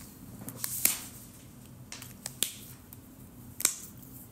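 Sharp clicks of art markers being handled, three loud ones with a few fainter ticks between them.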